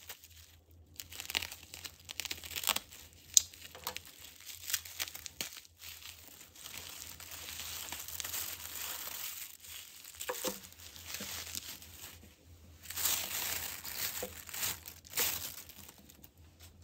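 Plastic bubble wrap crinkling and crackling in irregular spells as it is pulled open by hand from a small metal tin, with sticky tape being peeled off it near the start.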